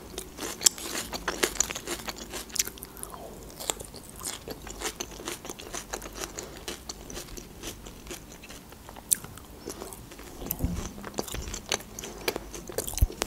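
Close-miked eating sounds: a person biting and chewing food, a steady run of many small sharp mouth clicks with no speech.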